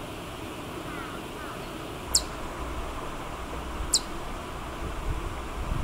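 Ezo chipmunk (Siberian chipmunk, Tamias sibiricus lineatus) calling: short, sharp, high-pitched bird-like chirps, one about every two seconds, the last at the very end, over a faint low rumble.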